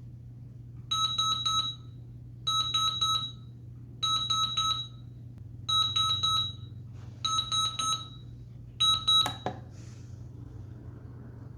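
Westclox FM radio alarm clock's alarm beeping: groups of four quick, high beeps repeated about every one and a half seconds, six groups in all. The beeping stops with a sharp click near the end.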